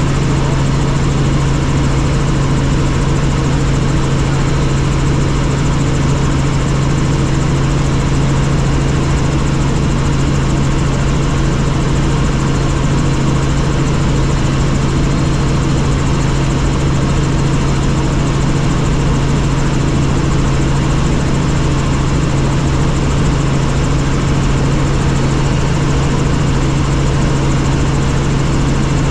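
Helicopter's engine and rotor running steadily: a constant drone with a strong low hum.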